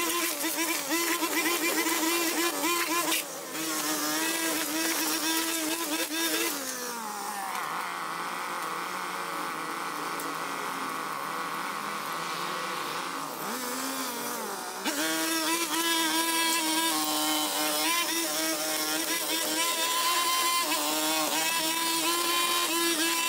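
Gas-powered brush cutter engine running at a steady high whine, easing off about seven seconds in and running lower for several seconds, then revving back up about fifteen seconds in and holding steady.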